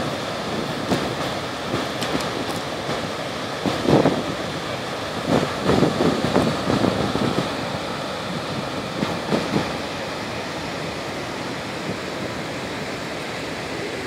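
Steady rushing roar of the Gullfoss waterfall heard close up, with gusts of wind buffeting the microphone about four seconds in, several more between five and seven seconds, and one near nine seconds, after which the roar runs evenly.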